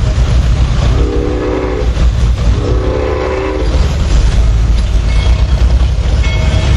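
Locomotive 353's whistle sounding two blasts of about a second each, several tones together, signalling its departure. A steady low rumble runs underneath.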